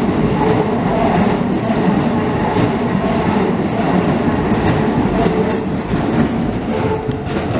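Keisei Kanamachi Line electric train passing close by, with a steady rumble of wheels on the track and two brief high wheel squeals.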